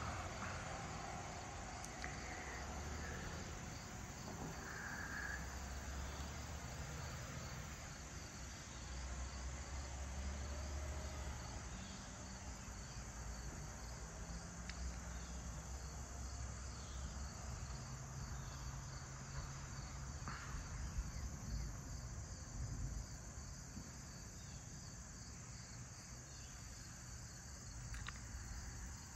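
Late-summer evening chorus of crickets and other insects: a steady, evenly pulsing high-pitched chirring. A low rumble swells and fades underneath.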